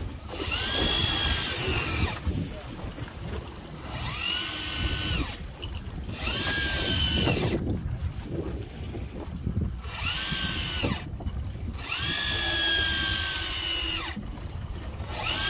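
Electric fishing reel's motor winding in line in about six bursts of a second or two each, its whine rising in pitch as each burst starts and falling as it stops.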